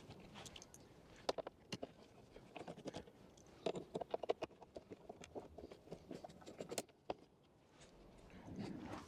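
Faint, irregular clicks and small scrapes of a screwdriver with a T20 Torx bit undoing the screws from a van's plastic door-mirror shell, going quiet for a moment near the end.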